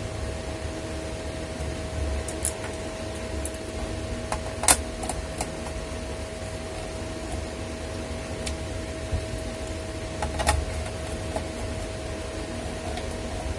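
Steady hum and rush of an electric fan running in the room, with a few short sharp clicks and taps as hands handle the laptop's plastic bottom case; the loudest click comes a little under five seconds in.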